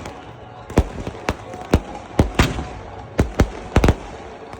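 Fireworks going off: an irregular series of about ten sharp bangs, some in quick pairs, over a steady background din.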